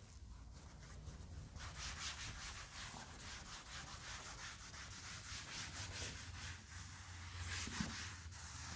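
Cloth duster rubbing across a chalkboard, wiping off chalk in soft, quick back-and-forth strokes.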